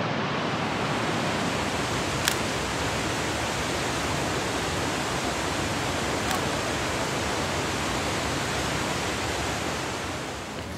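Steady rushing noise of water, even and unbroken, with two faint clicks about two and six seconds in.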